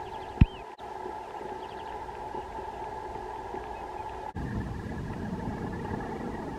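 A steady low hum with faint, high bird chirps and one sharp, loud thump about half a second in. About four seconds in, a rougher low rumble takes over.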